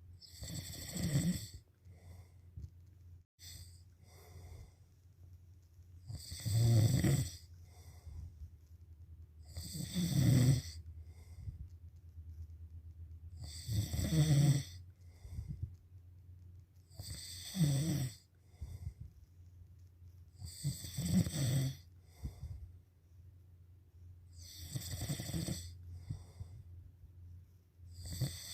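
A person snoring in a slow, regular rhythm: about eight snores, one every three and a half seconds or so, each about a second long, over a steady low hum.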